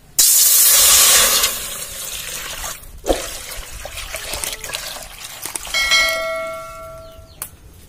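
Water poured from a steel bowl into an aluminium cooking pot, splashing loudly for the first second and a half, then pouring on more quietly with a second rush. About six seconds in a bell-like ding rings out and fades, followed by a sharp click.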